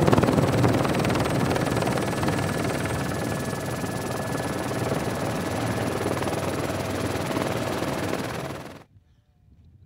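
Helicopter running, a dense rotor and engine noise with a fast low pulsing and thin steady whines. It cuts off abruptly about nine seconds in.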